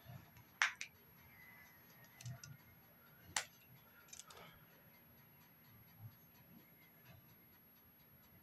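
A few faint clicks and taps of makeup items being picked up and handled, over quiet room hiss; the sharpest clicks come under a second in and at about three and a half seconds.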